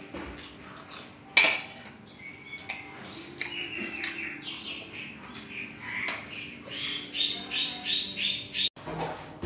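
Birds chirping and calling, short high notes that turn into a quick run of repeated notes near the end. A sharp clink of a spoon on the plate about a second and a half in.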